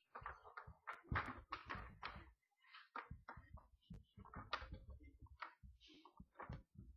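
Weaned pigs moving about a pen with a slatted floor: frequent, irregular knocks and thuds, with a short pause about two and a half seconds in.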